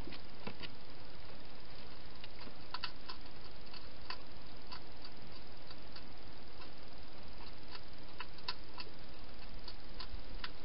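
Wild hedgehog eating from a bowl inside a clear plastic feeding box: irregular sharp clicks and crunches, about one or two a second, over a steady hiss.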